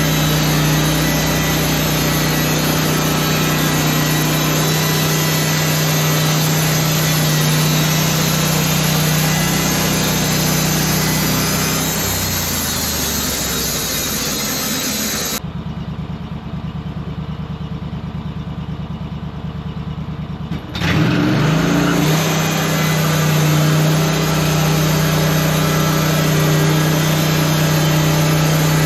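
Sawmill engine running steadily at speed. About halfway through it slows to a low, pulsing idle for several seconds, then revs back up with a rising pitch to a steady run.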